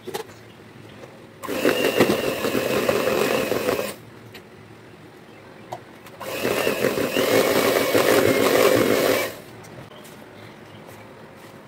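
Electric hand mixer running in two bursts, about two and a half and three seconds long, its beaters churning chocolate cake batter, with a steady high motor whine over the churning.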